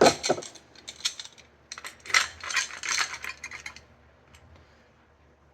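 Metal bicycle drum-brake and hub parts clinking and rattling as they are handled: a quick run of light metallic clinks in the first three seconds or so.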